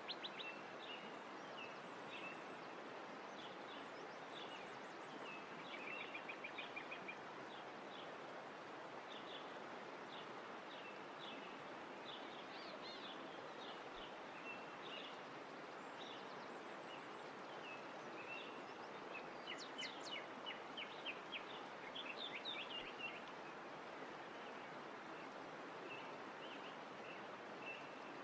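Faint outdoor nature ambience: small birds chirping and giving short rapid trills over a steady hiss, with denser trilling about six seconds in and again around twenty seconds in.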